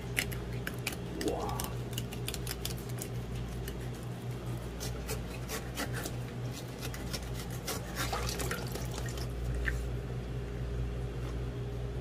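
Knife work on a wet fish on a plastic cutting board as it is filleted and sliced for sashimi: scattered short clicks, taps and wet scrapes. A steady low hum runs underneath.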